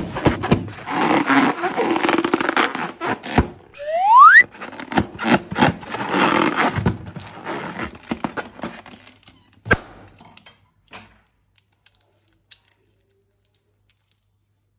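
Balloons and slime being handled and squeezed, with sticky squishing and crackling. About four seconds in comes a short rising squeak of balloon rubber, and there are a couple of sharp thunks, the last near ten seconds.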